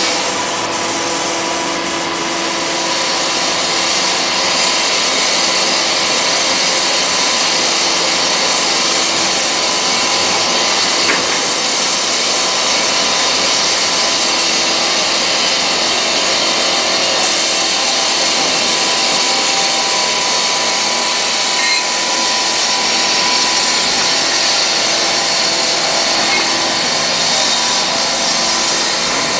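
A machine running steadily: a continuous hiss with a steady whine through it, unchanged throughout.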